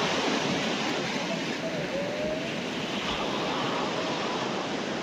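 Steady, even rushing of sea surf washing on the shore, with no single event standing out.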